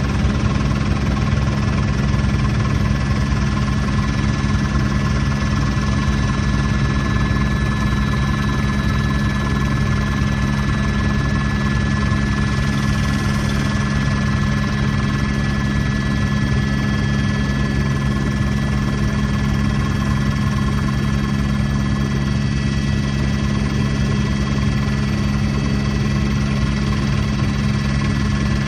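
Helicopter in flight heard from inside the cabin: the rotor and engine run as a steady, loud drone with a thin, steady high whine over it.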